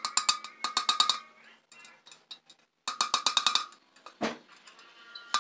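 Quick runs of light metallic taps on a motorcycle exhaust muffler's metal casing, about ten strokes a second, each with a short ringing note. There are two runs, the first about a second long and the second shorter about three seconds in, then a single dull thump a little after four seconds.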